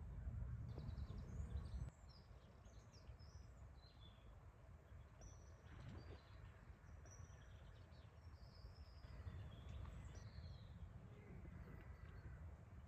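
Small birds chirping and calling faintly, many short high notes. A low rumble under them drops away suddenly about two seconds in.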